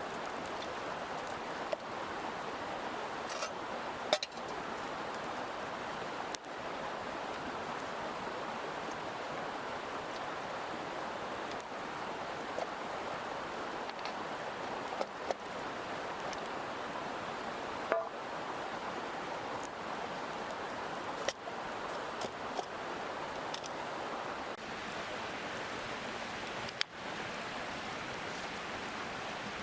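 Mountain stream flowing steadily, with a few sharp clicks scattered over it.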